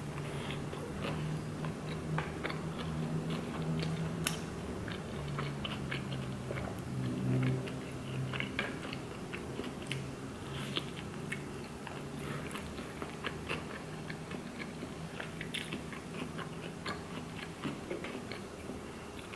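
A person biting into and chewing a large burrito in a flour tortilla, close to the microphone: many small clicks and smacks of the mouth as she chews.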